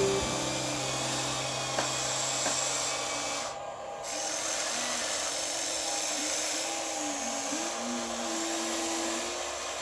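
Small electric motors and the hydraulic pump of radio-controlled construction machines running with a whine that slides up and down in pitch, over a steady hiss, with a brief drop about four seconds in.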